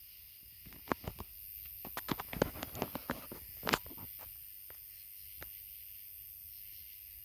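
A quick flurry of light clicks, taps and rustles, close to the microphone, about one to four seconds in, over a faint steady hiss.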